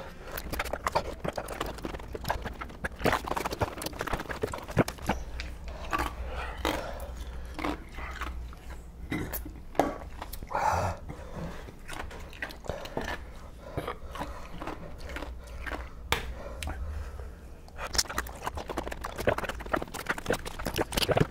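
Irregular sucking and smacking mouth noises from people working on a 9-million-Scoville chili-extract lollipop while in pain from the heat, with scattered small clicks and knocks.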